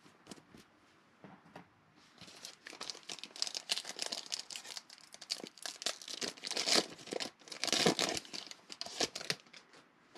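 A 2020 Panini Mosaic Football card-pack wrapper torn open and crinkled by hand. A dense run of crackling and tearing starts about two seconds in and fades away just before the end. It is loudest in the last third.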